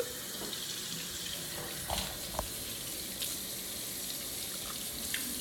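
Water running from a tap into a sink, a steady hiss, with a few light knocks about two seconds in.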